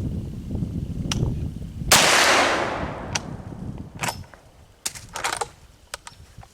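A single shotgun shot about two seconds in, its echo trailing off over about a second, followed by a few short sharp clicks and knocks.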